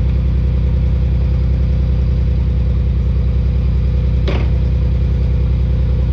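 A car engine idling steadily and loudly close by, with one brief sharp click about four seconds in.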